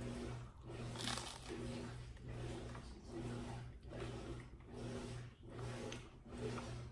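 A person chewing a mouthful of bagel with pumpkin spread: soft chewing sounds in a steady rhythm, a little more than one a second.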